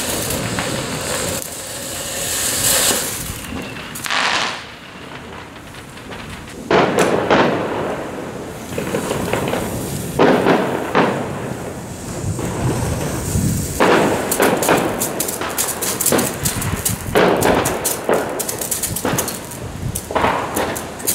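Small consumer firework fountains spraying sparks: a rushing hiss that surges and fades in spurts, turning to a dense fast crackle in the last several seconds.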